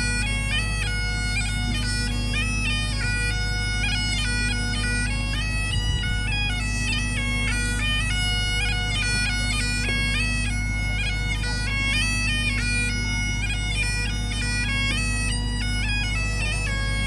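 Highland bagpipe playing a tune: the chanter melody steps between notes with quick grace-note flicks over the steady, unbroken hum of the drones.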